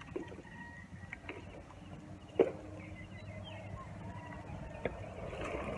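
Waves washing over a rocky reef flat make a low steady rumble. A few sharp knocks stand out, the loudest about two and a half seconds in.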